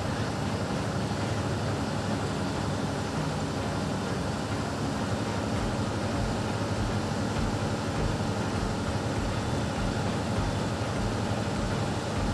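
Steady engine drone and road noise of a moving public bus, heard from inside the bus.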